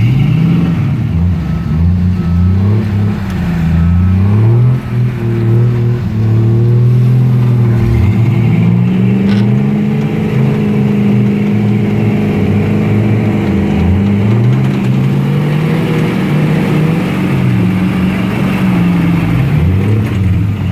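Off-road Jeep engine revving in repeated surges, its pitch rising and falling every few seconds, with a brief drop in power about five seconds in.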